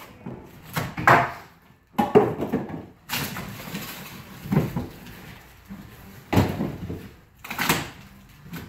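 Wooden boards being handled during demolition: about six separate knocks and bangs of wood, with scraping between them.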